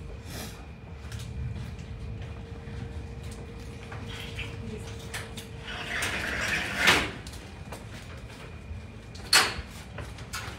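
Wire-mesh cage door being handled, its metal rattling, with two sharp knocks: one about seven seconds in after a short rustling scrape, and another near the end.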